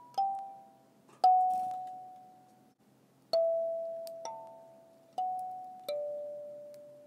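A 17-key kalimba played slowly: about six plucked notes, some as two- or three-note chords, each with a sharp metallic attack that rings out and fades over a second or two.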